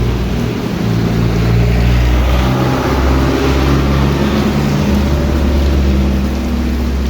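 A motor vehicle running, its low engine hum stepping up and down in pitch, under a loud rushing noise of heavy rain and wind.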